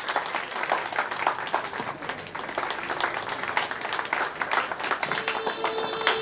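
Audience applauding, a dense patter of many hands clapping. About five seconds in, a steady held tone comes in over the clapping.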